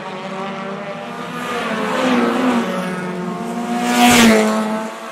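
Race car engines running at speed, one car passing close about four seconds in, its pitch dropping as it goes by, with another starting to come past near the end.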